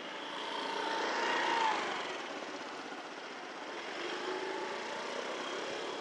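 A vehicle passing close by over steady street noise: the sound swells to its loudest about a second and a half in, its tone dropping slightly as it goes past, then fades back into the general traffic hum.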